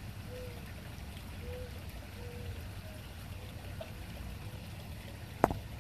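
Steady low outdoor rumble with a few faint short chirps, and one sharp click about five and a half seconds in.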